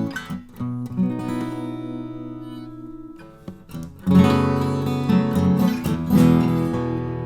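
Acoustic guitar strumming chords that ring out and fade, with a short pause about three seconds in before louder strummed chords start up again.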